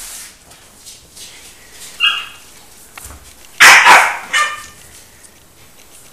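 Five-week-old West Highland white terrier puppies barking: a short high yip about two seconds in, then a loud burst of yapping barks around the middle.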